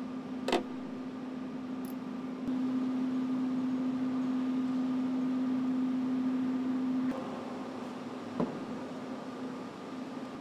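Indoor workshop room tone: a steady low hum with a fainter higher tone over a background hiss, louder for a few seconds in the middle. Two brief clicks sound, one near the start and one late on.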